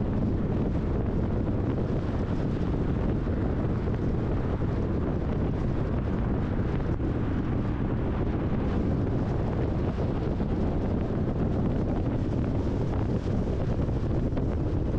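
Steady rumble of tyre and wind noise from a car driving at highway speed, with wind buffeting the microphone.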